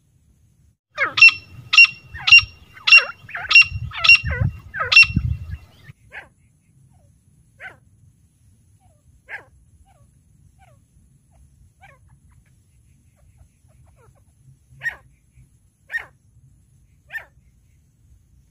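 Caged female grey francolin (teetar) calling: a run of seven loud, sharp, ringing notes, nearly two a second, then single softer notes spaced several seconds apart, three of them near the end. A low rumble sits under the first run.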